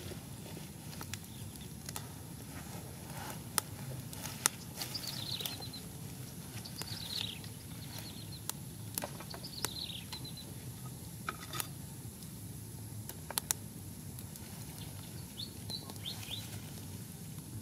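Small birds chirping in several short bursts, each a quick run of falling chirps, over a steady low outdoor hum. Scattered sharp clicks and taps come and go between the calls.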